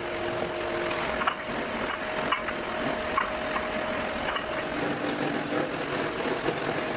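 Machinery at an aluminium ingot casting line running with a steady hum, a few held tones coming and going, and several short sharp knocks.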